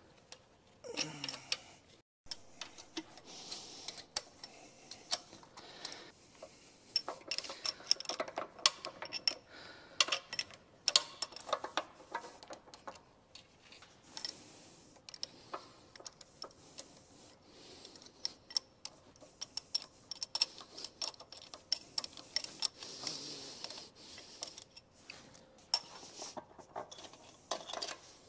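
Hand tools and bolts clinking, ticking and scraping on metal as the charge pump is unbolted and lifted off a Twin Disc torque converter housing. The knocks and clicks come at irregular times, with a few brief scraping bursts.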